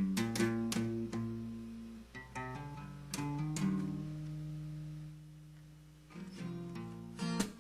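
Acoustic guitar playing a slow song intro: picked notes and chords that ring out, with a quick strum near the end.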